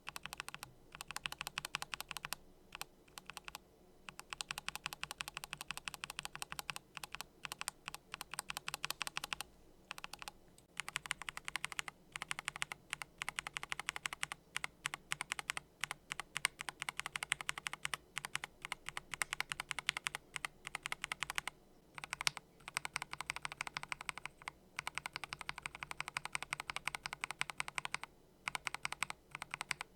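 Fast typing on a mechanical keyboard fitted with Gateron magnetic switches: rapid runs of keystroke clicks with a few brief pauses.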